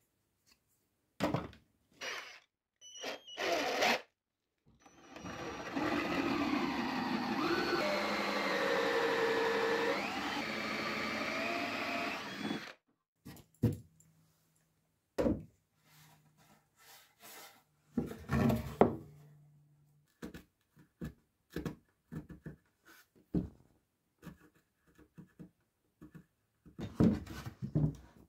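A handheld power tool running for about eight seconds, its pitch dipping and rising as it loads and unloads, amid knocks and clatter of wooden parts being handled.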